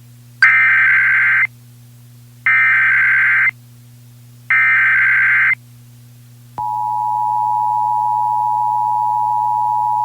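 Emergency Alert System header and attention signal: three one-second bursts of SAME digital header data, about two seconds apart, then the steady two-tone EAS attention signal (853 and 960 Hz) starting about six and a half seconds in. A faint steady low hum runs underneath.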